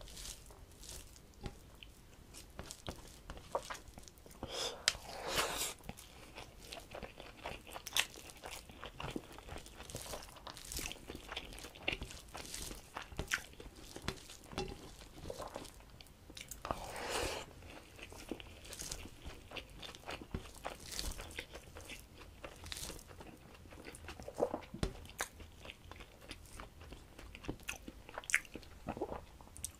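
Fingers mixing cooked rice with mashed greens on a steel plate, along with close-miked chewing: many short, sharp clicks and soft wet mashing, with a few longer, fuller mouth noises.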